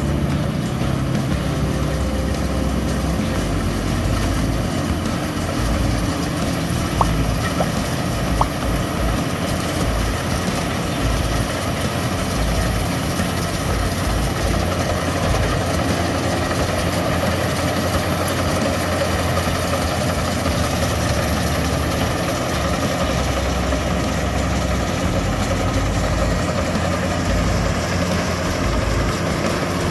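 Rice combine harvester's engine running steadily under work, with two brief sharp clicks about seven and eight seconds in.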